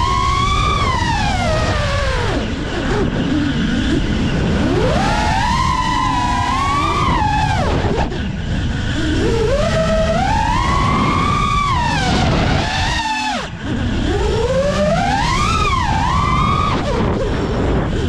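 FPV quadcopter's electric motors whining, the pitch swooping up and falling back about every four seconds, over a steady low rush of air noise.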